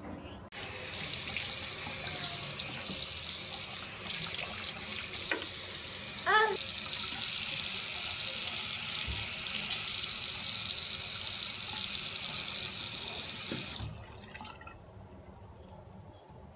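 Tap running into a sink in a steady stream, turned on about half a second in and shut off a few seconds before the end.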